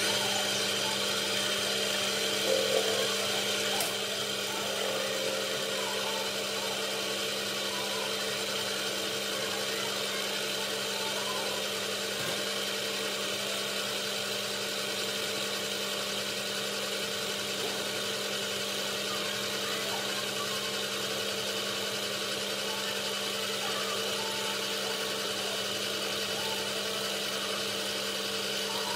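An electric power tool's motor running steadily: a constant hum with a higher whine above it, a little louder for a moment about three seconds in.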